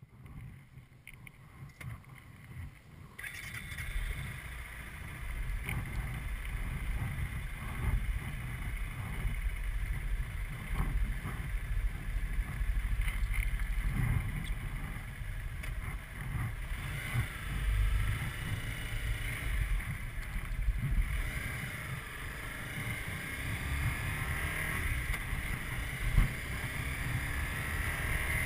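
Onboard sound of a Honda CBR250R's single-cylinder engine riding along, under a rumble of wind on the microphone. The engine pitch rises and falls a few times past the middle.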